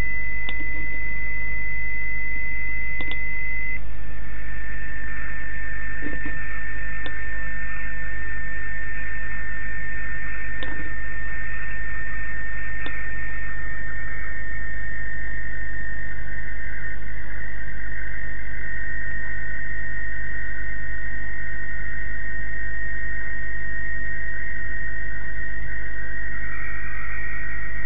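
Demodulated audio from a software-defined radio receiver: a steady whistle tone from a carrier over receiver hiss, with a steady low hum underneath. About four seconds in the tone drops slightly in pitch. Later the band of hiss around it narrows as the receive filter bandwidth is reduced.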